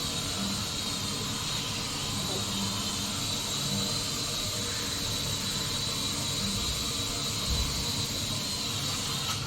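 Small toy quadcopter drone flying, its four motors and propellers making a steady high whine over a hiss.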